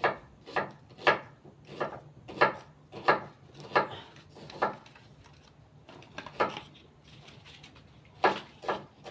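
Chunks of firewood knocking against each other and the brick as they are stacked in a braai fire pit. A run of sharp wooden knocks comes about one every half second to three-quarters of a second, then a pause, then a few more knocks near the end.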